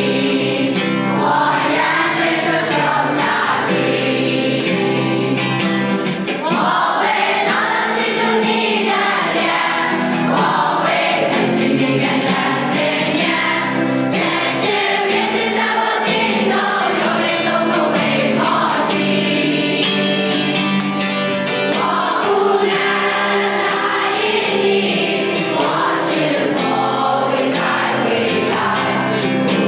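A choir singing together with musical backing, one continuous song.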